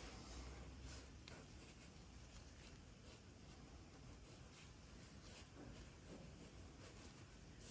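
Near silence: faint scratchy rustling of handling, with a few light clicks.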